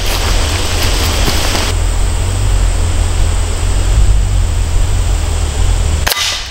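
Footsteps crunching through dry leaf litter and twigs as a person walks off, fading after the first second or two, over a steady loud low rumble and hiss that cuts off abruptly near the end.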